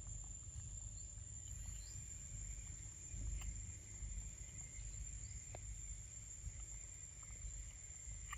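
Steady high-pitched insect drone over a low rumble, with a few faint scattered clicks.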